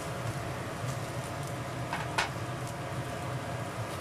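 Eggplant slices frying in oil in a pan: a steady sizzle, with one brief click about two seconds in.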